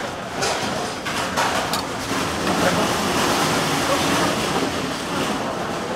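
Water rushing and splashing into a stainless steel sink as ramen cooking water is drained from an aluminium pot. The noise swells in the middle, with a few sharp clicks of metal tongs on the pot near the start and background chatter under it.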